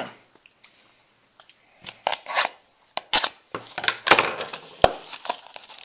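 Trading card packs and their box being handled: irregular rustling with sharp taps and clicks as packs are set out one at a time, starting after a short near-quiet moment.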